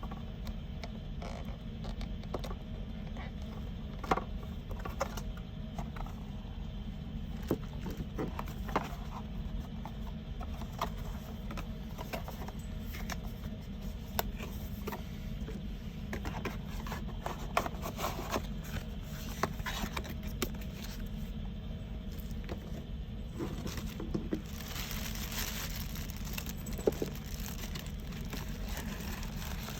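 Hands handling a camera and its packaging: scattered small clicks, taps and scrapes over a steady low hum, with a short stretch of crinkling plastic or paper a little past the middle.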